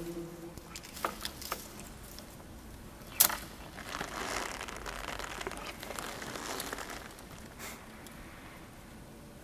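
Rustling and crinkling handling noise with a few sharp clicks, the loudest about three seconds in, and a longer stretch of rustling after it.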